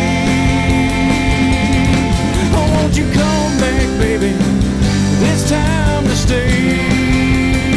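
Live rock band playing an instrumental passage of a song, with guitar lines bending in pitch over bass and drums.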